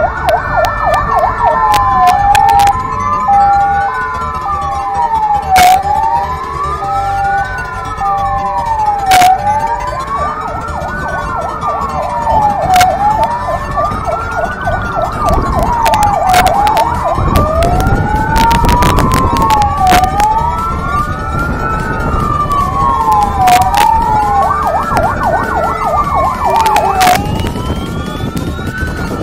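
Fire engine sirens wailing, a slow rise and fall about every three and a half seconds. A second siren joins a little over halfway through with its own rising sweeps, over a low rumble.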